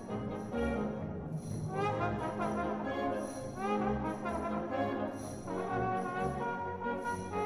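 Solo tenor trombone playing a Western-style concerto melody over a wind band, with euphoniums and other brass sustaining chords beneath it.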